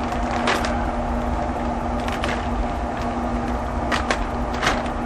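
A plastic bag of wood pellets crinkling in a few short bursts as it is pulled open, over the steady hum of a running pellet grill.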